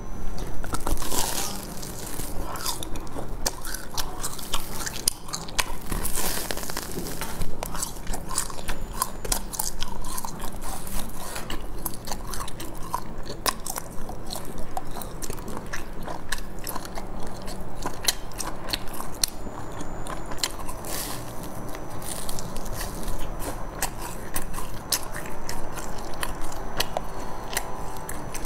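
Close-miked biting and chewing of a crusty sesame-seeded bun: many sharp crunches of the crisp crust over steady chewing.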